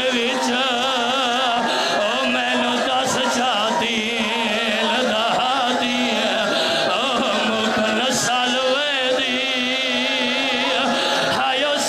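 A man chanting a mournful lament (vain) in a strongly wavering, ornamented voice through a loudspeaker, with other voices wailing along in overlapping, quavering lines.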